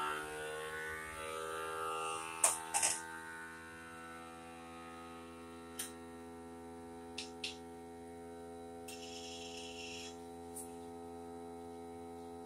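FoodSaver vacuum sealer's pump running steadily, drawing air out of a glass jar through the jar sealer attachment and hose; its hum sinks a little in pitch over the first couple of seconds as the vacuum builds, then holds. A few light clicks come about two and a half seconds in and again later, with a short hiss near the nine-second mark.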